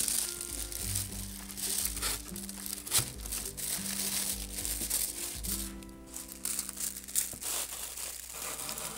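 Iridescent paper cones crinkling and rustling as they are handled and pushed into a wicker basket, over background music with long held notes.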